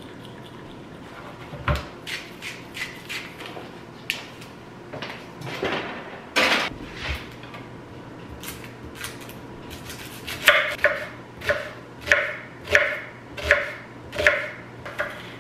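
Kitchen knife cutting through an onion on a wooden cutting board: about seven knocks of the blade on the board in the second half, a little more than one a second. Before that, scattered light clicks and knocks of food being handled on the counter.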